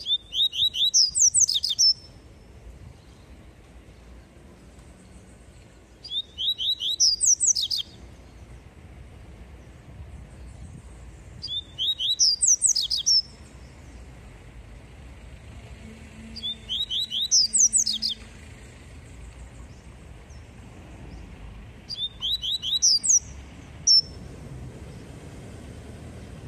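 Caged male papa-capim (Sporophila seedeater) singing its 'tui tui' song: five short high phrases about every five to six seconds, each a quick run of repeated rising notes that jumps higher near its end. A single short note follows about a second after the last phrase.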